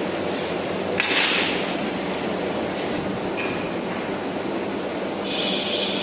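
Steady industrial machinery noise from a grinding-ball oil-quenching and heat-treatment line. A short, louder rush of noise comes about a second in, and a high steady whine joins near the end.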